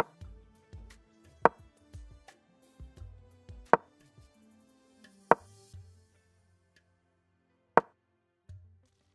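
Five sharp wooden clicks, the move sound effect of a digital chess board as pieces are placed, spaced about one and a half to two and a half seconds apart, over soft background music that stops about six seconds in.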